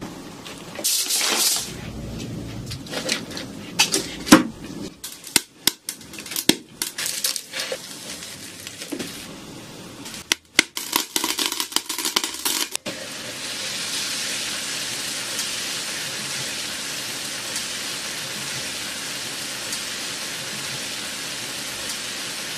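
Coarse sea salt poured into a foil-lined pan: a dense run of sharp crackles and ticks of grains and foil. About thirteen seconds in this gives way to a steady hiss of shrimp cooking on the salt under a glass lid.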